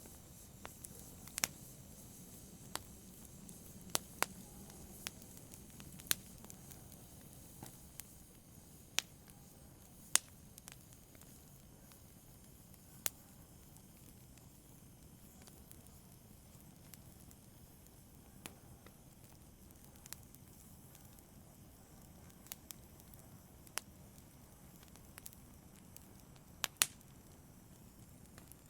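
Wood fire burning in a fireplace: sharp, irregular pops and snaps of the burning logs over a soft, steady rush of the flames.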